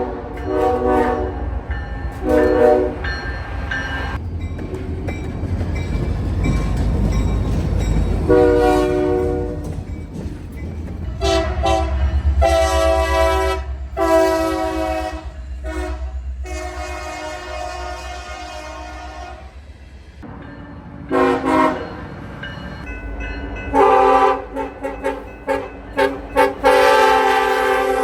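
Locomotive multi-chime air horn played in a horn show: about ten chord blasts of varying length, several short ones and long held ones in the middle and near the end. A low train rumble runs underneath, loudest between the blasts early on.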